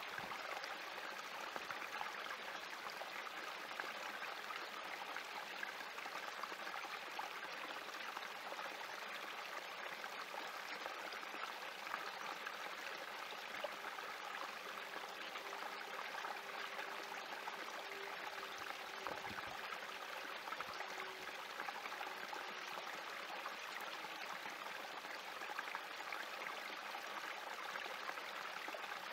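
Small spring creek trickling and splashing steadily over rocks in a shallow, narrow channel.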